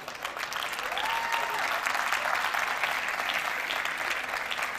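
Audience applauding, a dense patter of many hands clapping. About a second in, a single short tone rises and holds briefly above the clapping.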